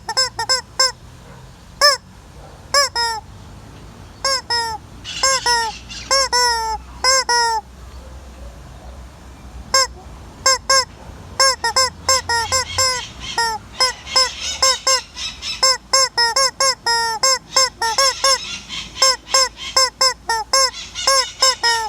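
A chicken calling over and over in short notes that rise and fall, in quick runs of several calls with brief pauses between them.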